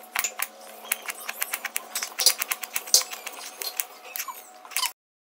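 Kitchen knife chopping slices of banana stem into small pieces on a wooden cutting board: quick, irregular knocks of the blade against the board, cutting off suddenly near the end.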